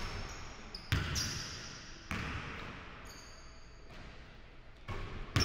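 Basketball striking the rim, then bouncing several times on a hardwood gym floor, each thud echoing in the large hall.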